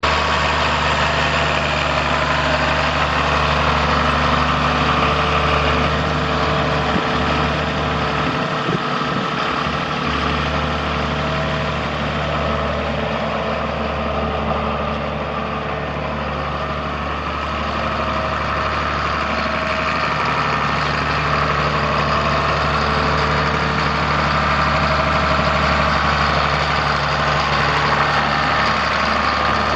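A 1994 John Deere 7700 tractor's six-cylinder diesel engine idling steadily.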